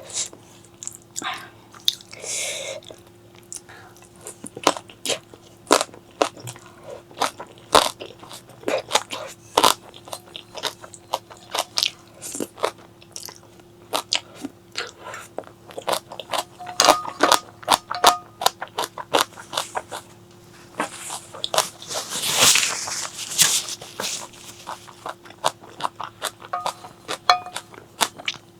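Close-miked eating: a steady run of sharp crunches and chewing from bites of crunchy food, with a noisier, smeared stretch of chewing near the end.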